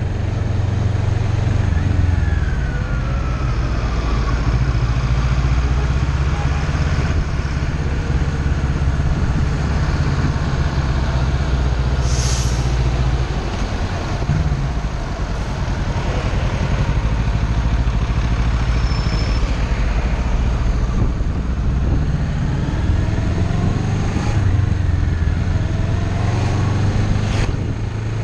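Kawasaki Ninja 650's parallel-twin engine running as the motorcycle rides in traffic, its revs rising and dropping with throttle and gear changes, over road and wind noise.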